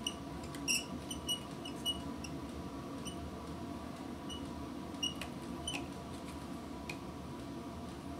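Steady hum of a 100-watt soldering gun held on a solder joint, with short high squeaks and faint ticks as the tip works the joint. The squeaks cluster in the first two seconds and again around five to six seconds in.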